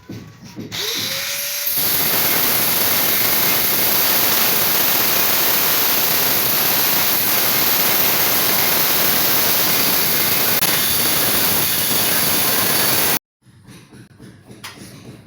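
A handheld power tool starts up about a second in and runs steadily at full speed for about twelve seconds, then stops abruptly.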